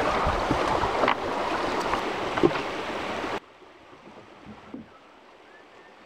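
A wooden flat-bottomed river boat being rowed: rushing water and wind on the microphone, with a knock about a second in. It cuts off suddenly a little over three seconds in to a much quieter background with faint rustles.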